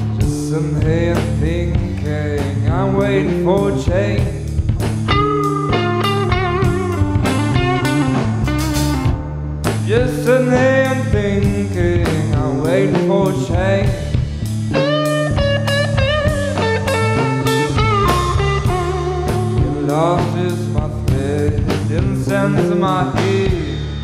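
Psychedelic blues-rock band playing an instrumental passage: electric lead guitar with bending, sliding notes over bass guitar and a drum kit.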